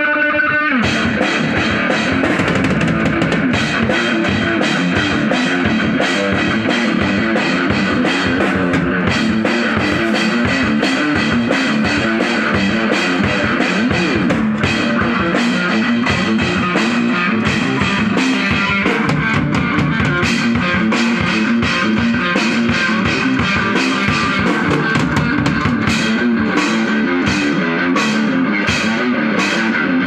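Rock jam on electric guitar and drum kit: the drums come in about half a second in and keep a steady beat under the guitar.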